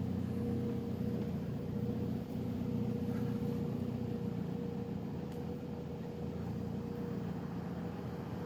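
Steady low mechanical hum with a faint higher tone held above it, like a motor or engine running at constant speed.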